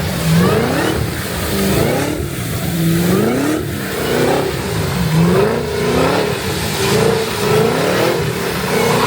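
Car engine revved repeatedly, its pitch climbing and dropping about once a second as the throttle is worked.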